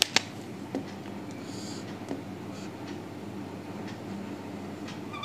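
Marker pen drawing on a whiteboard: faint scratchy strokes with a couple of sharp clicks at the start and a short high squeak at the very end.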